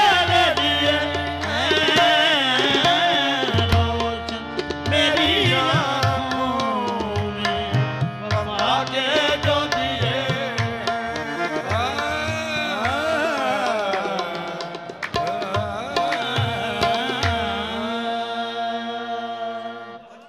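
Qawwali music: tabla strokes under a singing voice with long sliding notes and steady held accompanying tones. The tabla stops shortly before the end and the music fades out.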